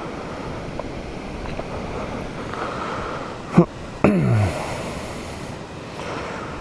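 Small waterfall splashing as a steady rush of water. A little past the middle come two short sounds that fall steeply in pitch.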